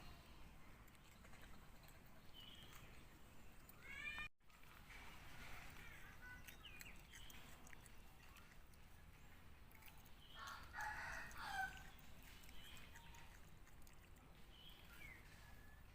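Faint rooster crowing, one call of about a second roughly ten seconds in, among a few short chirps and calls over quiet background.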